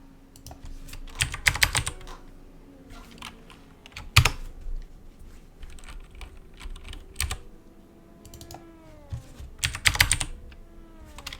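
Computer keyboard keystrokes in short bursts of a few clicks each, a few seconds apart.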